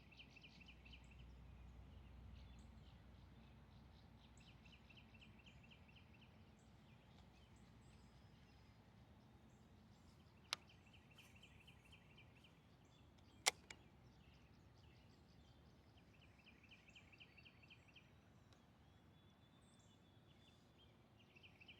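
Faint outdoor ambience. A high, fast trill recurs every few seconds, and two sharp clicks come about three seconds apart in the middle.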